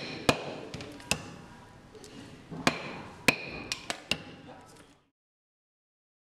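A hammer tapping a metal chisel through a large leather shadow-puppet figure laid on a work block: about seven sharp, uneven strikes, each with a short metallic ring, several in quick succession near four seconds in. The sound cuts off about five seconds in.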